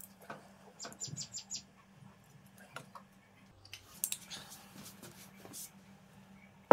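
Soft clicks and handling noise as a luggage-scale strap is hooked onto a wooden club bell, with a quick run of about five short high chirps about a second in, over a faint steady hum.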